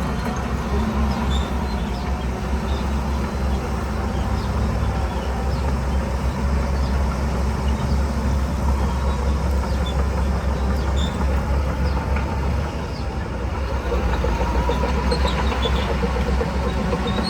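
Diesel engine of heavy earthmoving machinery running under load, a steady deep rumble with scattered light metallic clinks. The engine note drops briefly around thirteen seconds in, then comes back up.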